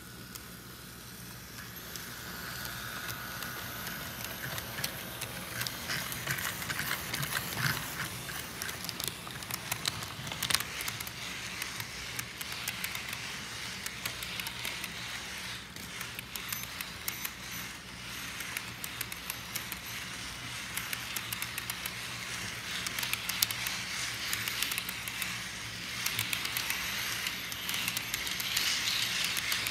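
Model freight train rolling past close by, its wheels clicking and rattling steadily over the track, over a steady low hum. It gets louder about two seconds in and again near the end as the cars pass nearest.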